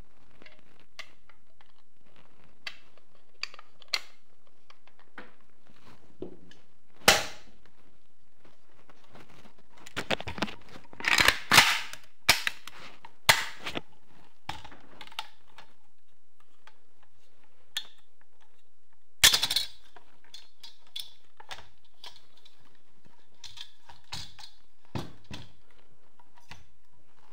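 Metal clicks and clacks of an RPK light machine gun being handled. Faint ticks are scattered throughout. Loud sharp clacks come once about seven seconds in, in a quick cluster from about ten to fourteen seconds, and again about two-thirds of the way through.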